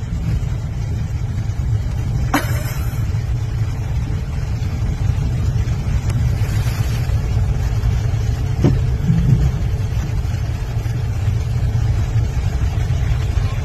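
Steady low rumble of a car, heard from inside its cabin, with two brief knocks, one about two seconds in and one near nine seconds.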